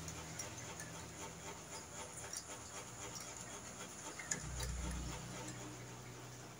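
Pliers gripping and twisting steel wire at the neck of a handmade clothes hanger: faint, irregular metallic clicks and scrapes, with a dull low bump a little after four seconds in.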